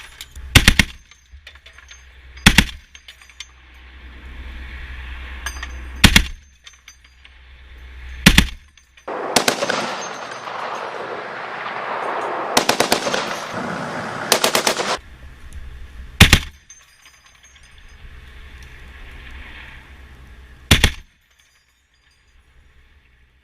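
Anti-aircraft gun firing: loud single shots every few seconds, about six in all. In the middle comes a stretch of about six seconds of dense noise with a quick run of shots near its end.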